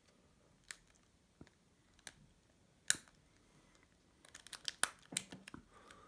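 Small metal clicks and scrapes of a pointed tool worked against a trigger lock's spring-loaded actuator: a few single clicks, a sharper one about three seconds in, then a quick run of rattling clicks near the end as the actuator is pushed aside and the lock's ratchet lets go.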